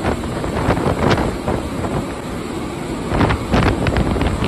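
Storm wind buffeting the microphone in a heavy, steady rumble, with waves breaking over a sea wall and throwing spray. Louder surges come about a second in and again just after three seconds.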